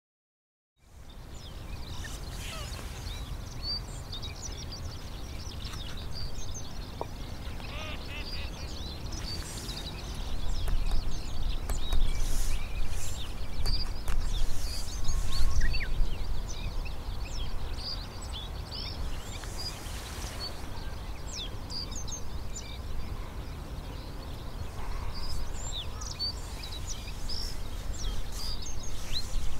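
Outdoor ambience: a steady low rumble that grows louder for several seconds about ten seconds in, under many short chirps and calls of small songbirds scattered throughout.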